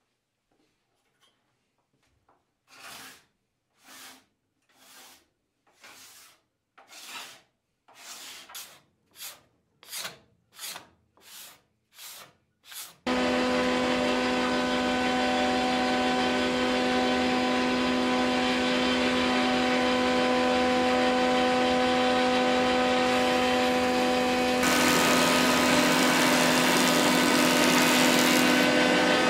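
About a dozen rubbing strokes of a hand tool across wood, coming faster toward the end. Then a stationary woodworking machine starts abruptly with a steady motor hum of several tones. About eleven seconds later a louder, rougher cutting noise joins in as a board is fed through the machine.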